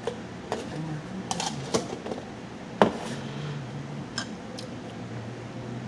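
Light clicks and taps of cutlery against dishes while eating, about eight in all and irregular, the sharpest a little under three seconds in.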